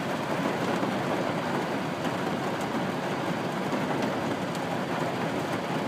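Steady hiss inside a car driving in the rain: tyres on the wet road and rain on the car's roof and windshield.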